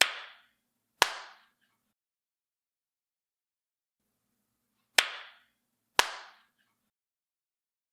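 Four sharp, short cracks in two pairs, the two in each pair a second apart and the pairs about four seconds apart, each dying away within half a second.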